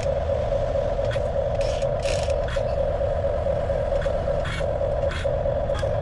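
Small electric motor and gears of a radio-controlled model running with a steady whine, with short scrapes and clicks now and then as it works.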